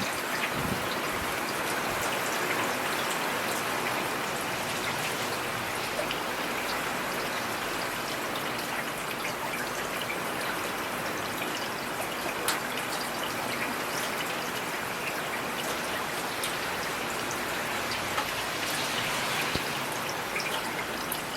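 Steady rainfall: an even hiss of rain with single drops ticking now and then.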